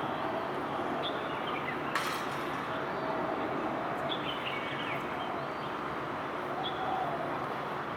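Steady outdoor background noise with small birds chirping now and then, and a single sharp click about two seconds in.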